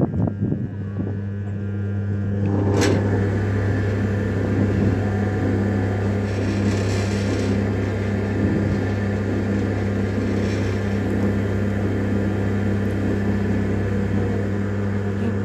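Freshly reconditioned JW Ratcliffe and Sons electric potter's wheel running at a steady speed: an even motor hum with a low tone underneath. A single sharp click about three seconds in.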